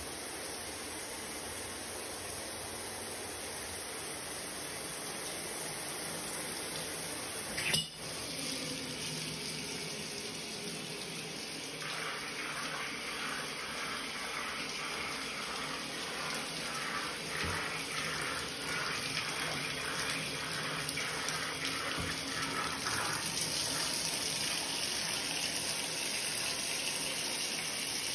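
Water running steadily from a bathtub's faucet or shower into the tub, with one sharp click about eight seconds in. The water grows a little louder in the last few seconds.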